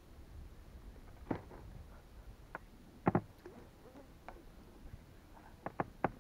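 A few light clicks and taps from hands handling a spinning rod and its line close to the microphone, spaced irregularly. The sharpest comes about three seconds in, with a quick pair near the end.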